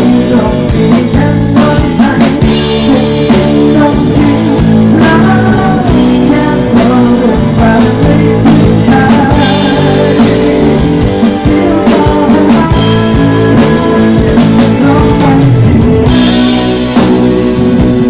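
A live band playing loud rock-style music through an outdoor PA, with guitar prominent, a wavering lead melody line and a steady drum beat.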